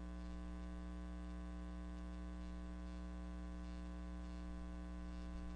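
Steady electrical mains hum picked up by the recording setup, one unchanging buzzy tone with many overtones.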